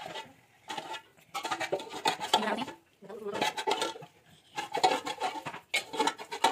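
A metal spoon scraping and clinking against an aluminium pot in several short bursts, as chicken masala is spooned in layers over parboiled rice for biryani.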